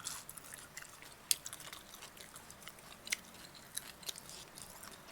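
A person chewing food close to the microphone, with scattered sharp crunches and wet mouth clicks every second or so; louder crunches come about a second in and again about three seconds in.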